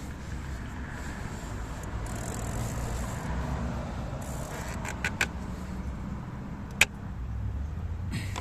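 A steady low rumble with a few sharp clicks of parts or tools being handled: two light clicks about five seconds in and a louder single click near the end.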